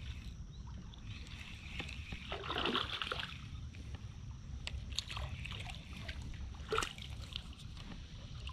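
Water sloshing and splashing around a plastic kayak hull, with one louder splash about two and a half seconds in and a few short sharp clicks later on.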